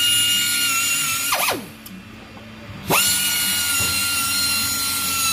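Handheld electric power tool running bolts on an engine's intake manifold: a steady whine that winds down about a second and a half in, then spins up sharply about a second later and runs steadily until it winds down again at the end.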